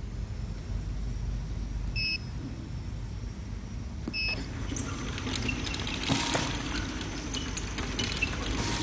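Two short electronic beeps from the automatic double-sided labeling machine's touchscreen, about two seconds apart. Right after the second beep, the machine's conveyor starts running, a steady mechanical drone with scattered clicks and rattles.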